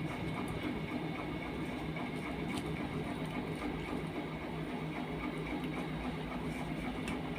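Steady mechanical hum with a few faint clicks.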